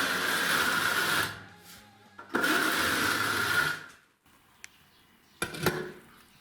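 An electric power tool motor running in two bursts of about a second and a half each, stopping abruptly, followed by a couple of short knocks.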